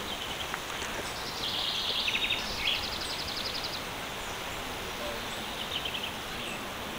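Small birds singing in quick high trills over a steady outdoor background hiss, strongest in the first half with a fainter trill near the end.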